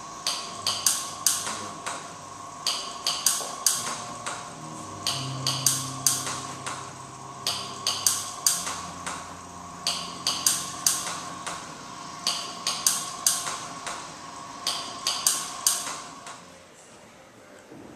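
Sharp knocks in quick clusters of two to four, repeating about once a second over a steady hum and low held tones; they stop about sixteen seconds in.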